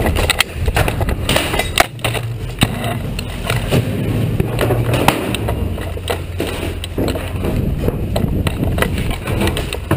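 Handling noise from a rifle-mounted camera as a soldier moves at a run: irregular knocks, clicks and rattling of the rifle and kit, with footfalls, over a low rumble.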